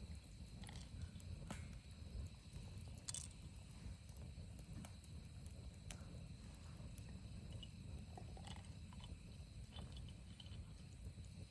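Wood fire burning in a Solo Stove Yukon fire pit, with faint scattered crackles and snaps over a low steady rumble.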